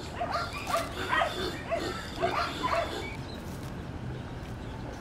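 Native pig squealing in short, repeated cries, two or three a second, stopping about three seconds in, as a rope that has been cutting into its body is being removed.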